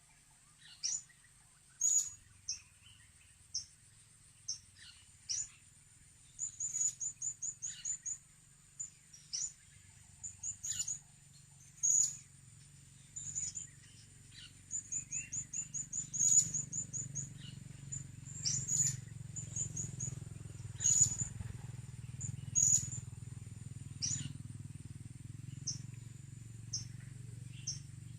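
Blue-crowned hanging parrots (serindit) calling: repeated short, very high, shrill calls that drop in pitch, mixed with quick chattering runs of clipped notes.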